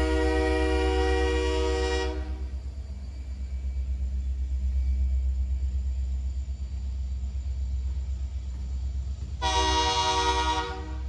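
Train horn sounding a long blast that cuts off about two seconds in, then one short blast of about a second near the end, over a steady low rumble.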